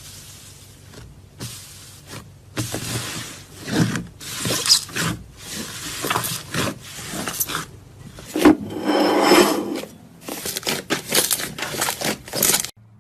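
Slime being handled and squeezed: uneven bursts of squishing and rubbing noise with many small clicks, stopping abruptly near the end.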